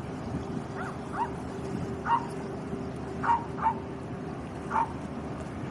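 A dog giving about six short, high yips, each one falling in pitch, spaced irregularly over a few seconds. Under them runs the steady low drone of a river barge's engine.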